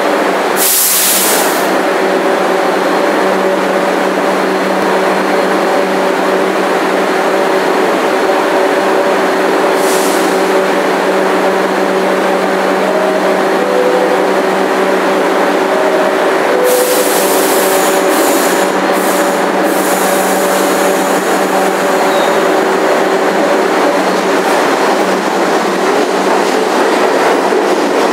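R62A subway train standing at the platform, its equipment giving a steady hum, with hisses of air about a second in, around ten seconds and around seventeen seconds. Near the end it is pulling out, and the sound carries on steadily as it moves off.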